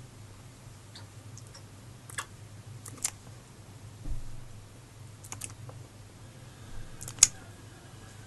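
A frog striking at a smartphone's touchscreen: several sharp taps at irregular intervals, the loudest near the end, over a low steady hum.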